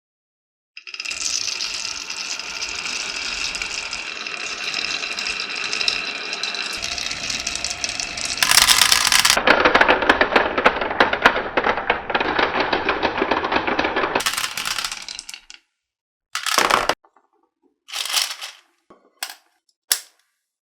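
Marbles rolling and clattering along a marble run track as a dense, steady rattle of clicks. It grows louder and busier about eight seconds in, then dies away into a few short, separate clatters near the end.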